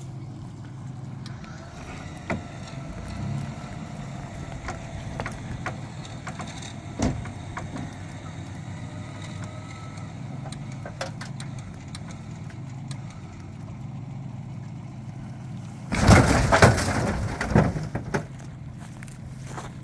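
A vehicle engine running steadily under a faint whine and scattered clicks while a rolled Jeep Wrangler is pulled upright on a recovery line. About sixteen seconds in comes a loud crash and a few thuds as the Jeep drops back onto its wheels.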